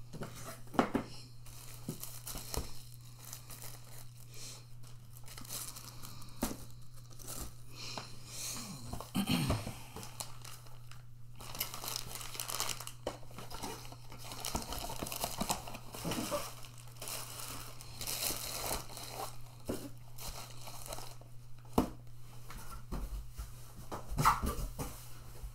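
Product packaging being handled and unwrapped: plastic and cardboard crinkling and tearing in irregular bursts, with a few sharp knocks and a steady low hum underneath.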